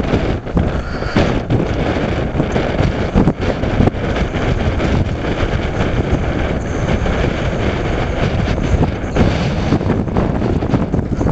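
Wind buffeting the microphone: a loud, uneven rush of low rumbling noise.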